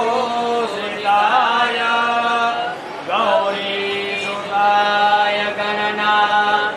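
A voice chanting a Sanskrit hymn to Ganesha in long held notes that glide from one pitch to the next, with a steady lower note held underneath.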